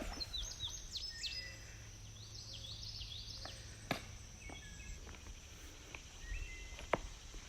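Wild birds chirping and whistling in short calls, some sliding down in pitch, over a steady high insect buzz and a low rumble, with a few sharp clicks.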